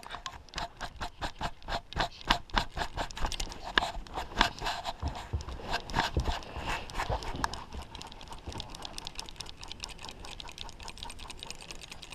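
Fly reel's click-and-pawl drag ticking rapidly and unevenly as line goes on or off the reel while a fish is played on a bent fly rod. The clicking is louder for the first two-thirds, then fainter.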